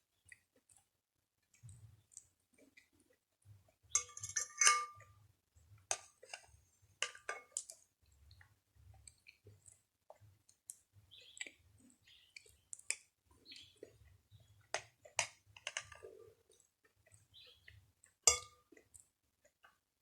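Close-up eating sounds: a spoon clinks against the dish now and then, loudest about four seconds in and again near the end, between sharp mouth clicks and chewing of phuthu, a crumbly maize pap, with sour milk.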